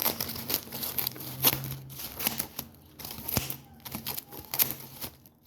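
Package wrapping being torn and crinkled by hand during unwrapping: irregular rips and crackles, with a sharper click about three and a half seconds in.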